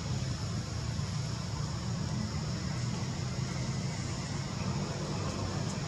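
Steady low rumble with an even hiss over it, unchanging throughout, with no distinct events.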